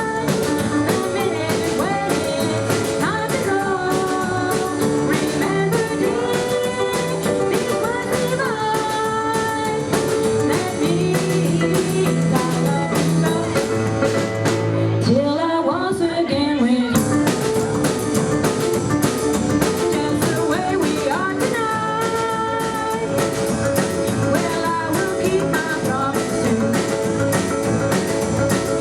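Live rock 'n' roll band playing a slow waltz number on keyboards, drums and double bass, with sustained melody notes over a steady beat and a short sliding, bending phrase about halfway through.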